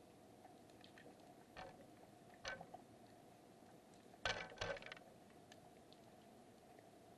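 Underwater recording: faint steady hiss with a few scattered clicks, then a short cluster of louder clicks and knocks about four seconds in.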